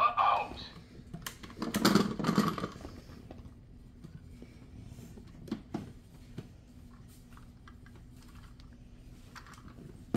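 Clicks and knocks of a plastic transforming toy being handled, with a louder burst of handling noise about two seconds in, then scattered light clicks.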